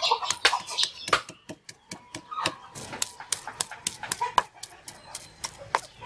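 A stone pestle knocking and grinding in a rough volcanic-stone mortar, pounding fresh turmeric into a paste, in quick repeated strokes about three a second.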